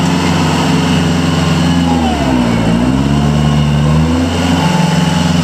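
Kubota L45's 45 hp diesel engine running steadily. About two seconds in, its speed pulls down briefly and then recovers.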